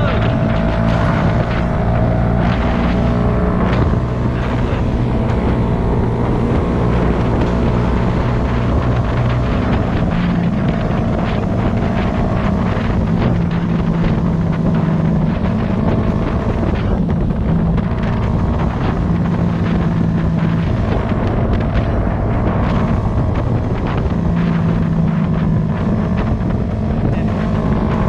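Honda CBR250RR motorcycle engine running at a fairly steady pace while riding, its pitch shifting only slightly now and then. Wind buffets the microphone throughout.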